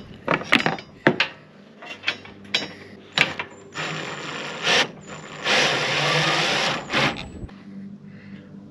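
Sharp metal clicks and knocks of tools being handled, then a power drill running twice, once for about a second around four seconds in and again for about a second and a half, with a high thin whine over the noise, while the trailer's wheel stops are fitted.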